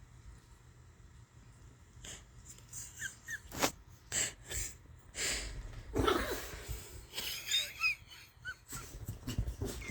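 Dog wheezing and snorting in a run of irregular, noisy breaths with a few short high squeaks, starting about two seconds in and growing busier.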